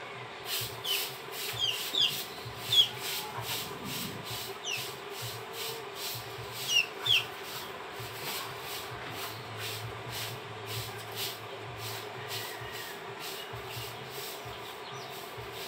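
Short, falling bird chirps, a few at a time in the first half, over a steady rhythmic high rasping that pulses about twice a second.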